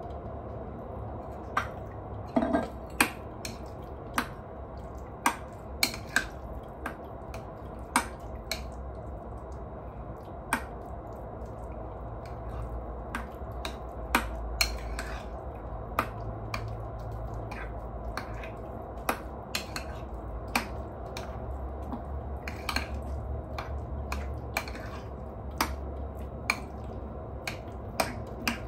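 Utensil clinking and tapping against a bowl while the spring-roll filling is mixed: sharp, irregular clicks about one or two a second, a few louder ones about two to three seconds in.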